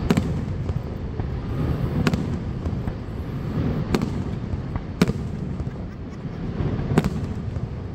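Aerial fireworks shells bursting overhead: five sharp bangs spaced about one to two seconds apart, over a steady low rumble.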